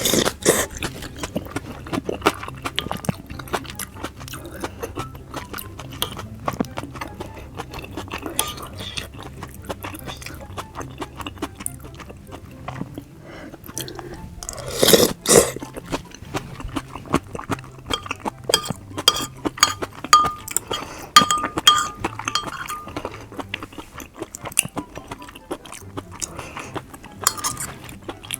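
Close-miked eating of raw fish and sushi: wet chewing and mouth clicks in quick succession, with light clinks of utensils on dishes. A louder, longer noisy burst comes about halfway through.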